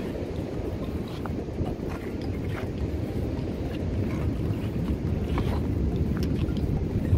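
Strong wind buffeting the microphone in a steady low rumble, over the wash of surf running up the beach, with faint scattered crackles.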